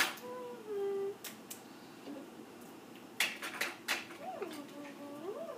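Small plastic toys clicking and clattering as they are handled and knocked together, with a cluster of clicks about three seconds in. A child's soft wordless vocalizing rises and falls in pitch between the clicks.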